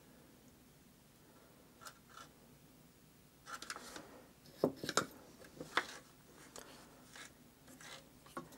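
Soldering iron tip being wiped clean on a wet sponge: a string of light taps and scrapes that begins about three and a half seconds in, after a faint, quiet start.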